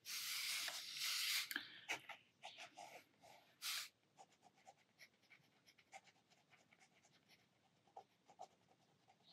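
Sakura Pigma Micron fine-liner pen nib scratching across textured watercolour sketchbook paper in short drawing strokes. The strokes are densest in the first second and a half, then come as a few short scrapes and, later, faint scattered ticks.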